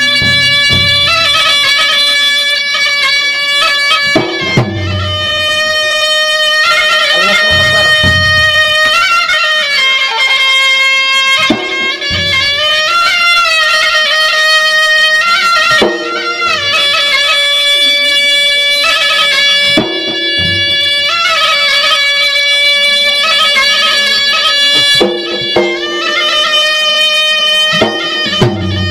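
Traditional Maros gendang ensemble playing: a loud, piercing reed wind instrument carries a melody of long held notes with slides between pitches, over the drums.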